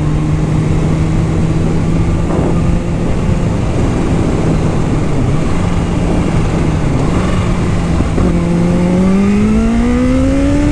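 Supercharged inline-four of a Kawasaki H2 motorcycle running at steady revs under heavy wind rush on the microphone. About eight seconds in, the engine pitch rises steadily as the bike accelerates.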